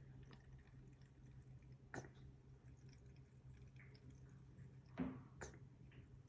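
Near silence with a low hum and a few faint clicks and taps, the loudest about five seconds in, from handling the paint cup and canvases while pouring a white acrylic base coat.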